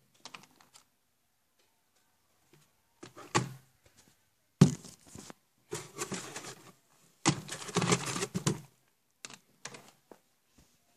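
Handling noises from a cardboard shipping box and objects on a wooden desk: several bursts of rustling, clattering and thudding with short quiet gaps, the loudest thud about four and a half seconds in.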